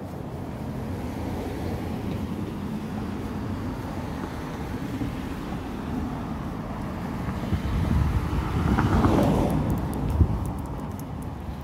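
A vehicle passing by on the street: steady road noise swells to a peak about nine seconds in, with a brief knock just after, then fades.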